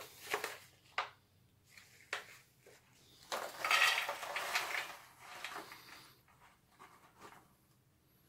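Roasted soybeans and corn nuts poured from a paper snack packet, rattling into a stainless steel tray compartment for about two seconds, beginning about three seconds in. A few short crinkles and clicks of the packet being handled come before and after.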